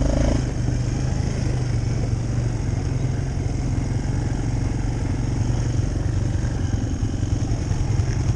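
Quad bike (ATV) engine running steadily at a low, even pace while riding along a dirt track, heard from on board the machine.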